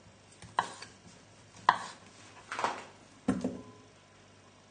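Knife chopping cooked potatoes on a chopping board, four separate knocks about a second apart.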